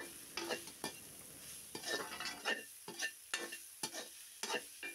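Perforated steel skimmer stirring vegetables and freshly added ground spices around a metal kadai: irregular clinks and scrapes of metal on metal, some with a short ring, over a faint sizzle of frying.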